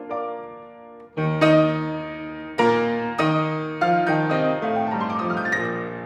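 Grand piano played solo. A soft chord dies away, then loud chords strike about a second in and again a little later, followed by a quick rising run of notes near the end.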